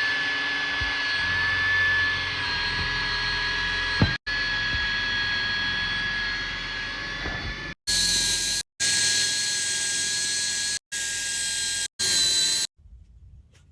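Electric drill running at steady high speed, boring a hole through the van's floor, with a constant high-pitched whine. It stops briefly about four seconds in, and in the second half cuts off abruptly several times.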